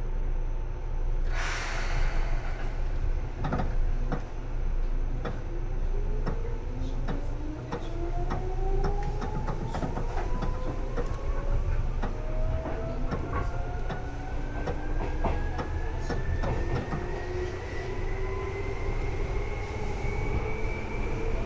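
Seibu 2000 series electric train heard from inside the car, pulling away and accelerating: a short hiss of air about a second in, then the traction motor whine rising steadily in pitch, with repeated clicks of the wheels over rail joints over a steady low rumble.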